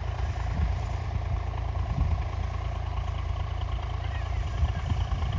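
Tractor engine running steadily with a low rumble while pulling a potato digger through the field.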